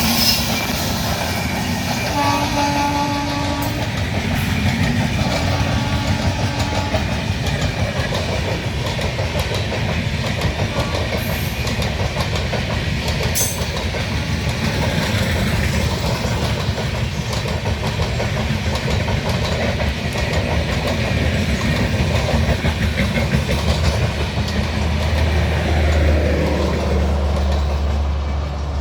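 A WAG-9HC electric locomotive's horn sounds two held blasts, about two seconds in and again about five seconds in. The superfast express then runs through the station at speed, its wheels clattering steadily on the rails, with a low hum coming in near the end.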